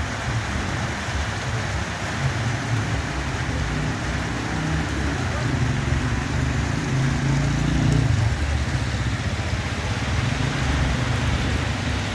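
Heavy rain falling steadily, with a low rumble underneath that swells about halfway through.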